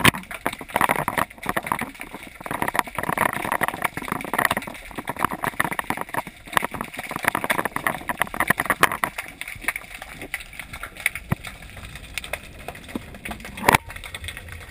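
Muffled underwater noise picked up through a GoPro's waterproof housing while swimming: rough water rush with many irregular clicks and knocks.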